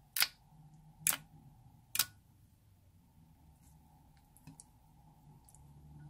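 Three sharp clicks about a second apart, from fingertips at the rim of a glass dish. They are followed by faint sticky ticks as a hand presses into clear slime and lifts a fold of it.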